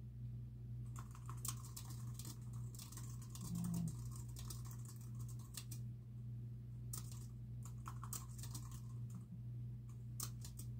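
Fast typing on a computer keyboard, keystrokes clattering in bursts with short pauses, starting about a second in, over a steady low hum.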